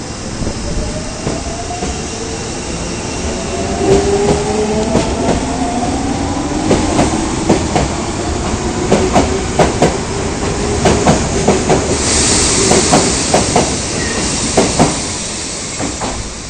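Osaka Municipal Subway 22 series train (set 22962F) pulling away, its electric traction motors whining and rising in pitch as it gathers speed. The wheels clack over rail joints in quick pairs, and there is a burst of hiss about twelve seconds in.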